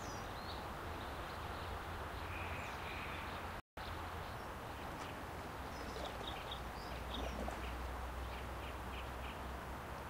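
Outdoor ambience: a steady background hiss and low rumble with faint, scattered bird chirps, including a run of short repeated chirps in the second half. The sound cuts out completely for a moment about a third of the way in.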